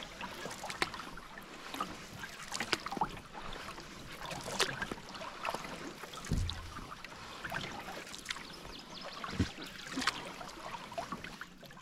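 Canoe moving over a lake: water splashing, dripping and lapping against the hull as it is paddled, with two brief low thumps partway through.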